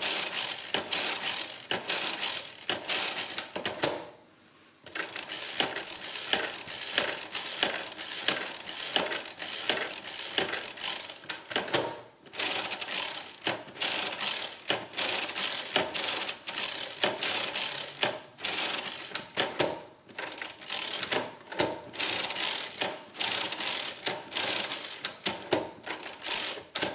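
Mercedes Euklid 16 mechanical calculator, hand-cranked through an automatic division: rapid, repeated clicking and clattering of its lever mechanism as it subtracts and adds each digit and shifts the carriage from place to place. The clatter stops briefly three times along the way.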